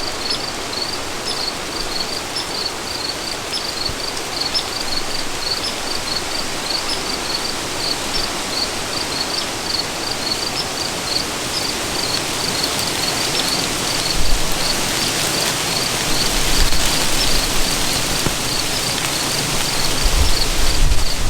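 A cricket chirping steadily, about two or three short high chirps a second, over an even outdoor hiss that swells in the second half. Low rumbles come in near the end.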